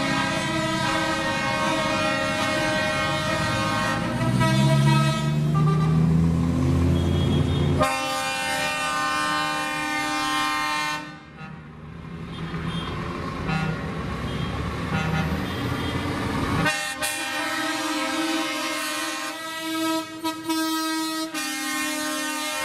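Truck air horns sounding in long held multi-tone blasts as lorries drive past, over the rumble of their diesel engines. A low engine note rises between about four and eight seconds in, and the horn sound changes abruptly near eight and seventeen seconds in.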